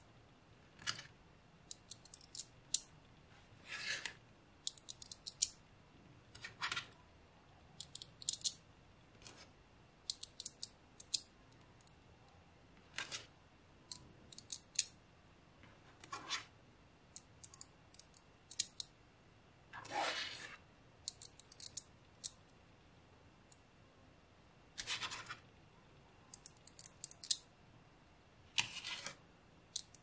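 Small magnetic balls clicking and snapping together as they are placed and built up, in scattered sharp clicks, with a longer rasp of about half a second every few seconds as balls slide or roll against each other.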